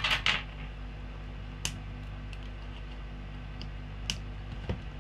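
Handling noise of small electronic parts and side cutters against a circuit board: a short rustle at the start, then a few sharp isolated ticks, the clearest about a second and a half in and again about four seconds in, over a steady low hum.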